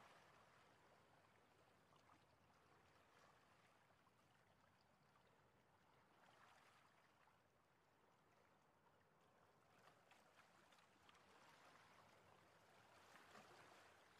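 Near silence: only a faint background hiss.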